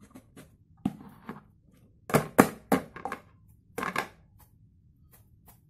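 A round metal cake pan and a plate knocking and clattering against each other as the pan is flipped upside down onto the plate to turn out a steamed cake. The sharp knocks come in a cluster about two seconds in, the loudest of them, with a few more around three and four seconds.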